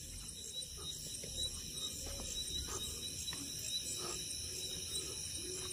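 A chorus of crickets trilling steadily, high-pitched, with a few faint soft knocks.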